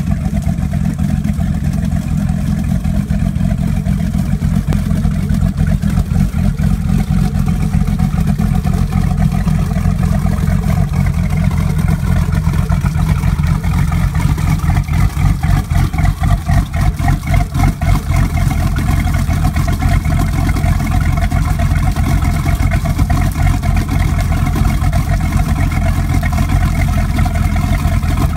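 A 502 big-block V8 marine engine in a sterndrive speedboat idling steadily, out of the water on its trailer, its exhaust leaving through the twin transom tips. The level pulses more unevenly for a few seconds around the middle.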